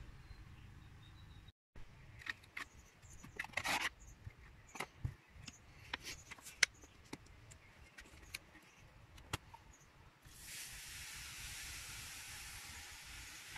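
Scattered clicks and taps, then about ten seconds in a steady fizzing hiss as vinegar poured onto baking soda foams up in a rust-removal bath.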